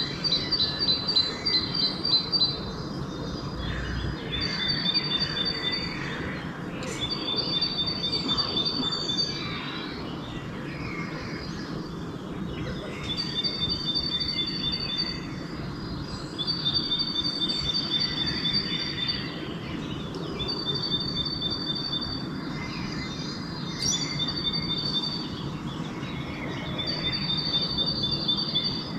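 Dawn chorus of songbirds: a high, rapid trill lasting about two seconds repeats roughly every three seconds over fainter scattered chirps, with a steady low background rumble.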